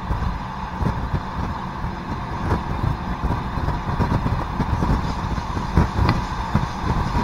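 ALn668 diesel railcar running along the line, heard on board: a steady engine drone and wheel-on-rail rumble, with two faint sharp clicks, one about two and a half seconds in and one about six seconds in.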